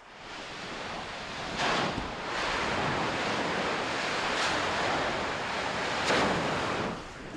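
Steady rushing noise of a phreatic explosion on Mount Etna, where magma hit snow and steam and ash billow out. It builds over the first second and swells louder about two seconds in and again about six seconds in.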